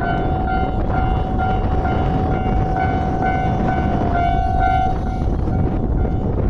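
Railway level-crossing warning bell ringing in a fast, even pattern of about two strokes a second over the loud rumble of a passing train; the bell fades out after about five seconds.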